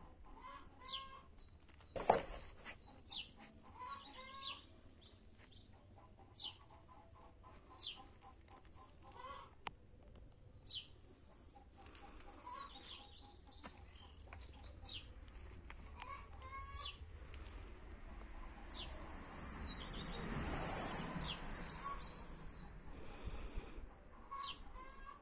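Chickens clucking in the background, with short bird chirps every second or two. A single sharp knock comes about two seconds in, and a broad rush of noise swells and fades later on.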